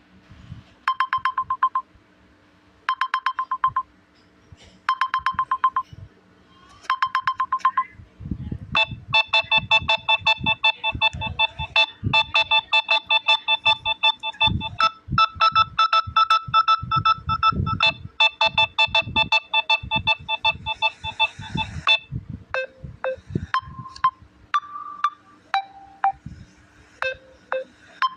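Samsung Galaxy A04s ringtones playing one after another: first a short trilling ring repeated about every two seconds, then a busier electronic melody over a steady beat from about eight seconds in, and near the end a sparse tune of single notes.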